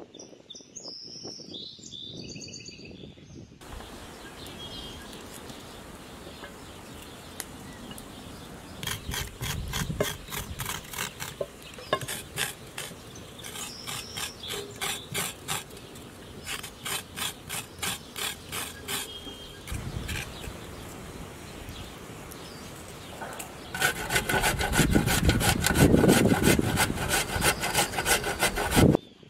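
Potatoes being peeled with a knife, a scraping sound in bursts of regular strokes, about three a second. Near the end a carrot is rubbed on a metal box grater, louder and faster, a run of steady rasping strokes.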